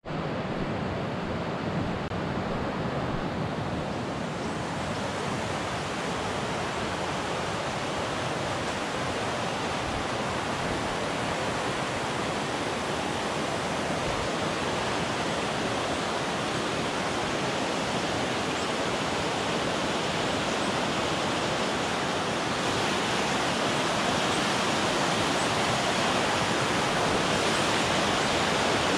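Rushing whitewater of a fast, rocky mountain river: a steady, even wash of rapids that grows a little louder about two-thirds of the way in.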